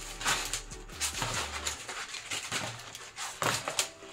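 Rustling and handling noise of artificial banana-plant leaves being lifted and laid down on a table, in several short bursts.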